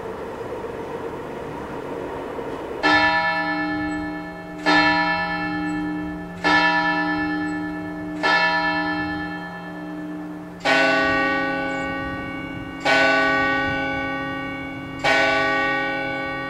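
Church tower bells striking: four strokes of one bell about two seconds apart, then three strokes of a slightly deeper bell, each ringing on and fading before the next. This is the pattern of a tower clock striking quarters and then the hour.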